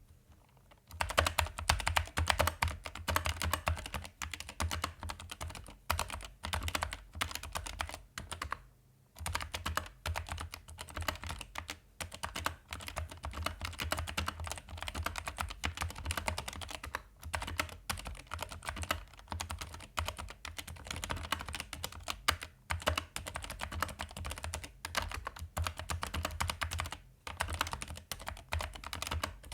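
Typing on a Keychron K8 mechanical keyboard with Keychron optical red linear switches, lubed with Krytox GPL 105 against spring ping. A fast, continuous run of keystrokes starts about a second in, with a short pause around the middle of the first third and brief breaks after.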